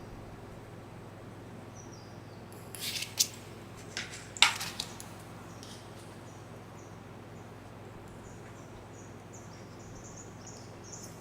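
Knitting needles being handled: a few sharp clicks and scrapes in the middle, over a steady low hum. Faint, short high chirps repeat through the second half.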